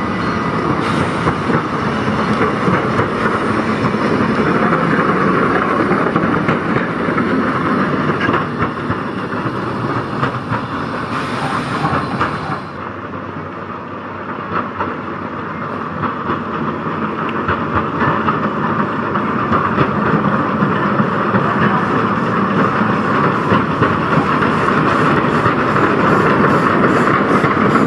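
A Bagnall 0-4-2T narrow-gauge steam tank locomotive running along the track, with wheels clicking on the rails and some steam hiss. The sound drops about 13 seconds in, then grows louder as the engine draws close, with a regular beat of a few strokes a second near the end.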